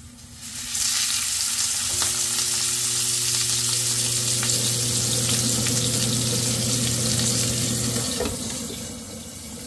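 Fish sizzling as it fries in hot oil. The sizzle swells about half a second in and eases off near the end. A steady low hum runs under it for several seconds and then cuts off.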